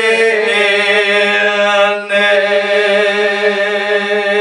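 A man's voice chanting a Muharram mourning recitation, drawing out long held notes: one note for about two seconds, a brief break, then another long held note.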